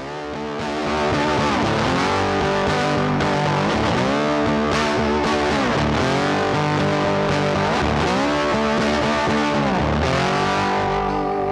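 Intro music led by a distorted electric guitar, its notes bending up and down in pitch; it fades in over about the first second and then plays steadily.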